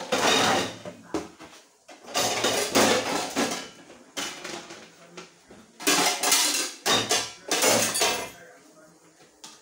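Dishes, pots and utensils clattering and being shifted about in three spells, with sharp knocks and clinks between them, dying away near the end.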